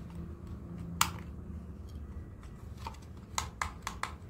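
Toy remote-control car being driven, its plastic body and wheels clicking and knocking over a low steady hum: one sharp click about a second in, then a quick run of five near the end.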